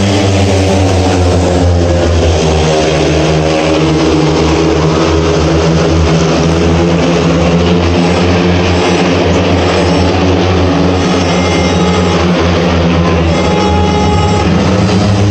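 Several speedway motorcycles' engines running together, their pitch rising and falling as the bikes go round the track, with music from the stadium PA underneath.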